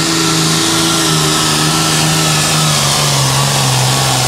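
Turbocharged diesel engine of a John Deere Super Farm pulling tractor running at high revs under full load while pulling the weight sled; its pitch drops slightly about halfway through and then holds.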